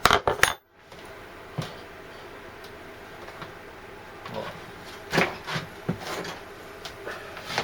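Metal tools and workpiece being handled on a bench: a quick cluster of sharp clicks at the very start, then scattered single knocks and clicks, several close together a little after the middle.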